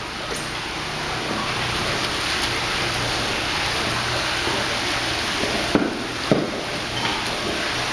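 Steady rush of running water, like a hose or tap splashing on a wet floor, over a low hum, with two sharp knocks about six seconds in.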